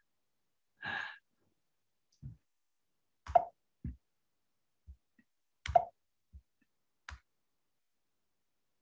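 A short hiss about a second in, then several sharp clicks and short dull thumps scattered over the next few seconds, with dead silence between them.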